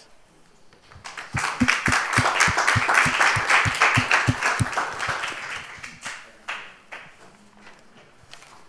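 An audience applauding. The clapping starts about a second in, builds, and dies away after about five seconds, with one clapper close to the microphone heard as a regular beat of about three claps a second. A few scattered knocks follow.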